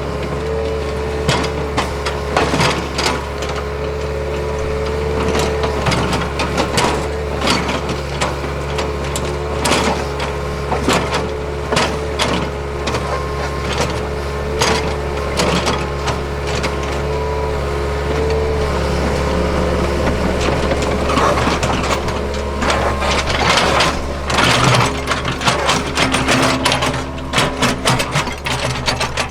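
Hitachi ZAXIS75UR compact excavator's diesel engine running steadily with a held hydraulic whine, under repeated knocks and clanks of the working machine on the gravel road bed. The clatter grows denser over the last few seconds.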